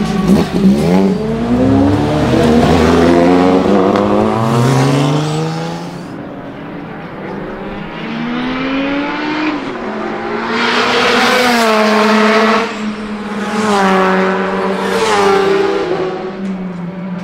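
Twincharged four-cylinder Lancia Delta S4 engine in a homemade racing prototype, accelerating hard through the gears. Its pitch climbs and drops back at each shift, several times over, as the car passes.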